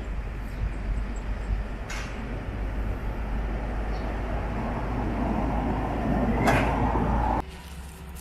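Street noise dominated by a steady low vehicle rumble, swelling louder toward the end, with a couple of sharp knocks. It cuts off abruptly near the end.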